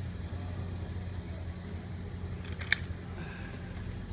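Steady low background hum, with one sharp click about two-thirds of the way through.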